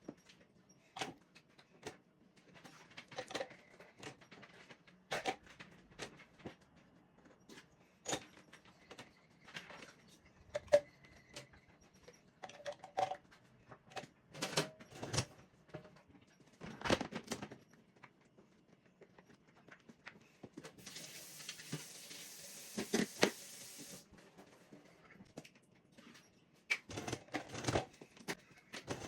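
Dishes, glasses and cutlery clinking and knocking as a dishwasher is unloaded and reloaded: scattered single clatters throughout, busier near the end. A steady hiss lasts about three seconds in the latter half.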